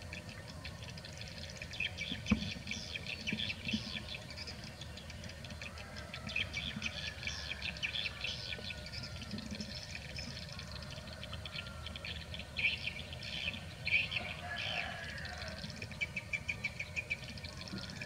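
Birds chirping in quick repeated bursts of high chirps throughout, over a low steady background rumble.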